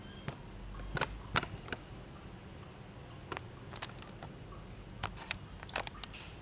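Handling noise: scattered light clicks and taps, about a dozen at irregular intervals, from small tools and parts being moved about.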